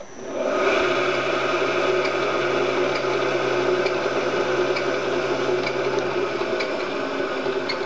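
Milling machine spindle starting up about half a second in and running steadily, turning an offset boring head that enlarges a hole in an aluminium block.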